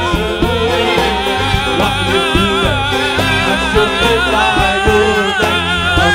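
A man singing an Arabic tarab song live into a microphone: a long, ornamented vocal line with a strong wavering vibrato, over instrumental accompaniment and a steady percussion beat.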